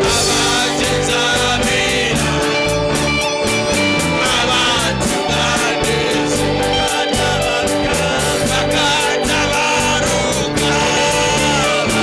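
Gospel worship music from a band, with electric guitar, a steady drum beat and singing.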